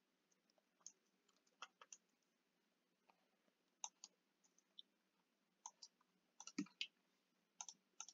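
Faint, irregular clicks of computer keyboard keys and a mouse, sparse and separate, with a small cluster of clicks near the end.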